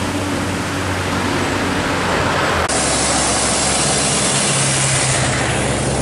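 Road traffic passing close by: engines and tyre noise of a bus, cars and motorcycles. About three seconds in the sound cuts to another road, where an approaching bus engine drones at a steady pitch along with passing motorcycles.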